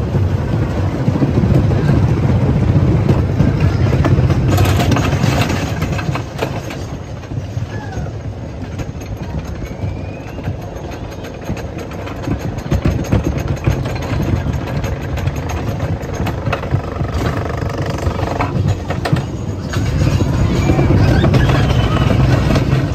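Wooden roller coaster train rolling on its track with a low rumble, then climbing the chain lift, where the rumble drops and a steady run of clicks and clatter takes over; the rumble swells again near the end as the train crests and rounds the turn at the top.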